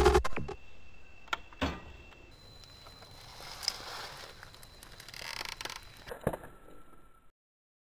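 Rotten cashew apples being squashed under a slowly rolling motorcycle tyre on asphalt: faint crushing sounds with a few sharp clicks, the sharpest near the end.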